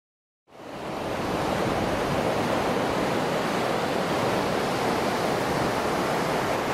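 Steady wash of surf breaking on a sandy beach, fading in after about half a second of silence.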